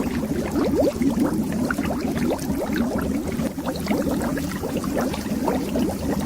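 Air bubbles streaming underwater: a steady, dense run of quick bubbling blips, each rising in pitch, over a low rumble.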